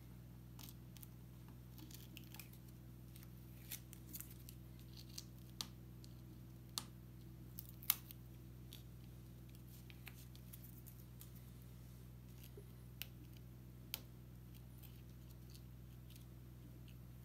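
Faint scattered crackles and clicks of paper backing being peeled off an adhesive sand-art board and of fingers pressing on the card, the sharpest about halfway through, over a low steady hum.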